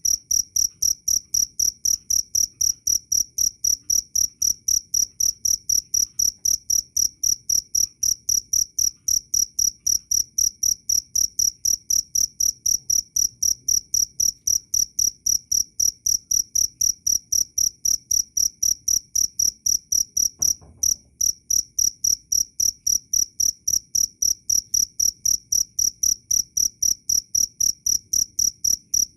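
A cricket chirping loudly and clearly: a high, steady-pitched chirp repeated evenly about three times a second, with one brief gap about twenty seconds in.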